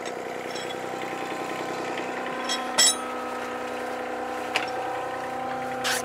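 Terex (Schaeff) mini excavator's diesel engine idling steadily. A few short knocks and clicks are heard over it, the loudest about three seconds in.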